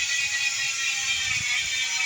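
Bicycle rear freehub coasting, its pawls ratcheting in a fast, loud, steady buzz.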